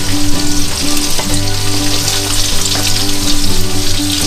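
Onion and garlic sizzling as they sauté in a hot pan, with a few clicks of the utensil stirring against the pan.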